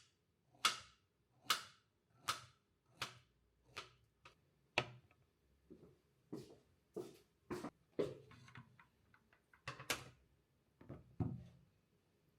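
A series of sharp knocks, at first evenly spaced about every three-quarters of a second, then irregular with some quicker, lighter taps in between.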